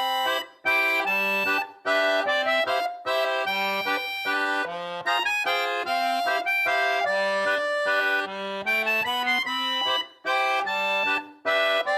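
Accordion playing a bouncy tune: short, repeated chords over alternating bass notes.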